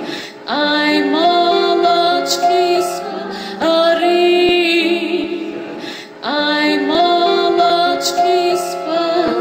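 A woman singing a slow lullaby in long phrases, each starting with an upward slide and settling on held notes, over a steady low accompanying tone. New phrases begin about half a second, three and a half and six seconds in.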